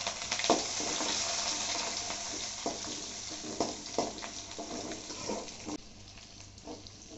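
Crushed garlic sizzling in hot oil in a metal kadai, with a slotted spatula scraping and knocking against the pan several times as it is stirred. The sizzle drops off sharply near the end.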